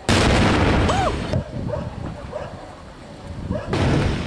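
Explosive demolition charges going off at the base of a ferro-concrete water tower: a sudden loud blast that lasts about a second and cuts off, then a second loud burst of noise near the end as the tower begins to topple.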